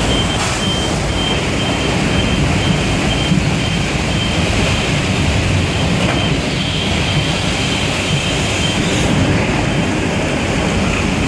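Floodwater rushing through a town street: a loud, steady wash of noise, strongest in the low end. A faint high tone comes and goes, at the start and again about two thirds of the way through.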